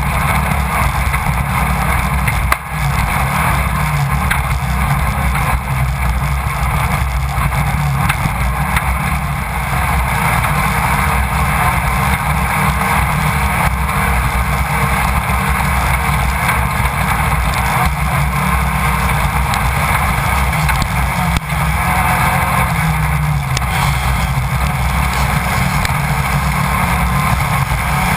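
Class 1600 off-road race car's engine running at speed, heard from inside the car. The sound is loud and steady, with two brief dips in level, one about two and a half seconds in and another later on.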